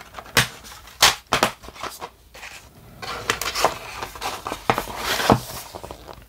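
Plastic DVD case handled by hand: sharp plastic clicks and snaps as a disc is pressed onto its hub and the case is worked shut, then a scraping rustle as the case slides into its cardboard slipcover, with one more click about five seconds in.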